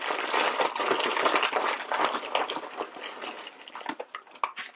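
Blind-bag packets rustling and crinkling as a hand rummages through a bin full of them. The rustling thins out near the end to a few scattered crackles.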